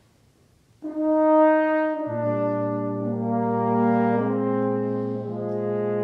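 Brass quintet of two trumpets, horn, trombone and tuba starting to play: a single held brass note begins about a second in, then a low bass note and the other parts join about two seconds in, moving in slow sustained chords.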